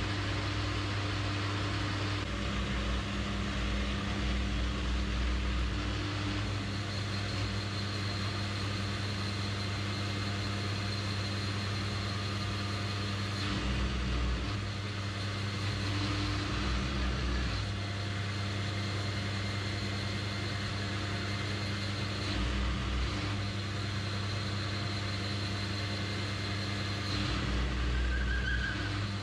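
AL960B metal lathe running steadily while a turning tool skims a steel spindle shaft: a continuous motor hum under a broad cutting hiss, with a thin high whine that comes and goes.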